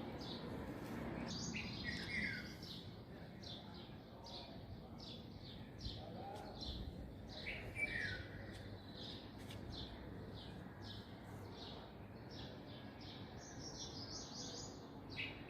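Birds chirping: a run of short, high chirps about twice a second, with a louder call that falls in pitch every few seconds.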